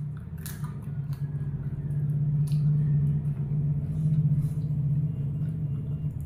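A steady low motor hum or rumble that swells in the middle and fades near the end, with a few faint clicks over it.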